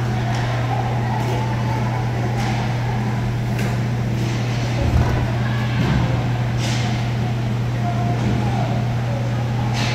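Inline hockey play on a plastic sport-court rink in a large hall: a steady low hum runs under scattered sharp clacks of sticks, puck and skate wheels on the tiles, with a thud about five seconds in.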